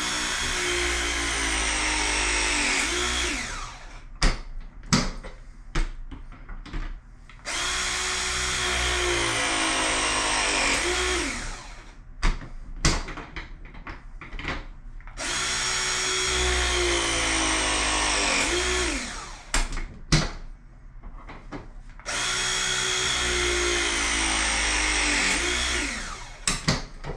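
Battery-powered ProPress crimping tool pressing fittings onto copper pipe. It runs four press cycles, each a steady motor whine of about three and a half seconds whose pitch bends near the end as the jaws close, with clicks and knocks in between as the jaws are moved to the next fitting.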